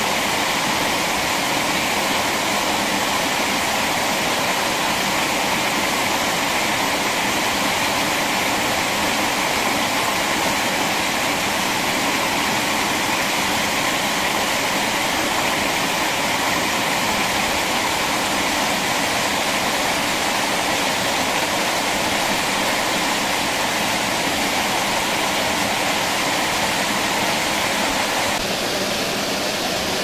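Steady rush of flowing stream water, turning a little quieter near the end.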